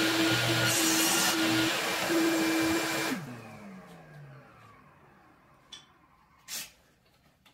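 Table saw running and crosscutting a board to length, with a steady motor hum under the cutting noise. About three seconds in the saw is switched off and the blade whine falls away as it spins down. Two short knocks come near the end.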